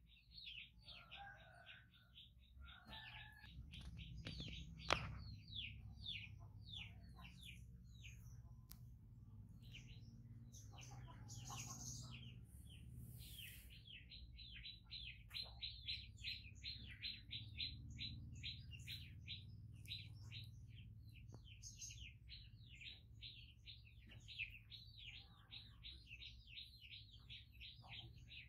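Faint bird chirping: a fast, steady run of short high chirps, several a second, that thins out for a few seconds in the middle and then resumes.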